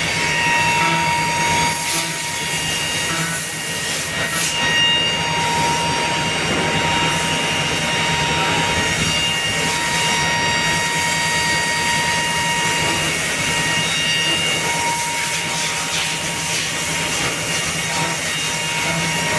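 SM 1325 A4 four-head CNC nesting router machining a wood panel. Its spindles give a steady high whine of several tones over a continuous rushing cutting noise and a low hum.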